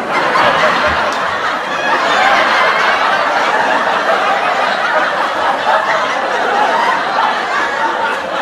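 Sitcom studio audience laughing together, a steady, dense crowd laugh track.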